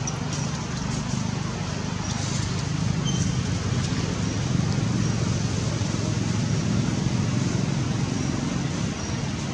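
Steady low outdoor rumble, slightly louder in the middle, with faint short high chirps here and there.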